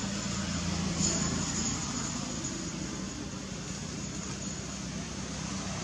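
Steady outdoor background noise with a low hum, like distant traffic or engines.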